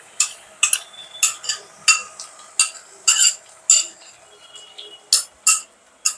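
A utensil clinking and scraping against a ceramic bowl and a nonstick frying pan as spice paste is scraped out of the bowl into the pan. There are about fifteen sharp, irregular taps.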